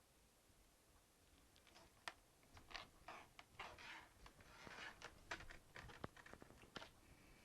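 Faint, irregular small clicks and short scrapes of hand work on a laptop's plastic case, as the screws go back into its base.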